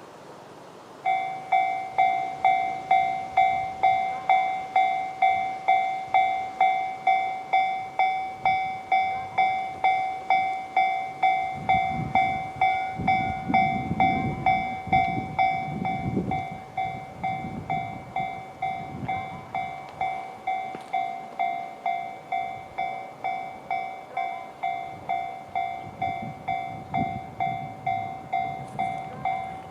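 Japanese railway level-crossing alarm: the JR standard electronic bell starts about a second in and strikes about twice a second, warning of an approaching train. Its volume drops a little past halfway.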